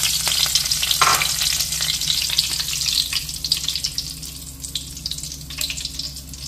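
Curry leaves sizzling and crackling in hot oil inside a wire-mesh frying ladle dipped in a steel kadai. After about three seconds the sizzle thins and dies down as the ladle comes out of the oil. There is a single sharp click about a second in.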